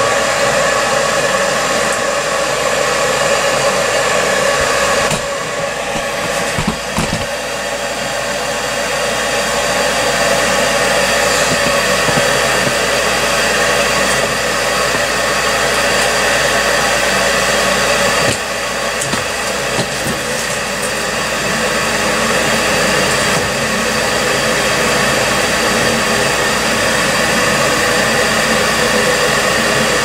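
Gas furnace draft inducer motor running steadily on a start-up test, a loud fan whirr with a steady hum that dips briefly about five seconds in and again near eighteen seconds.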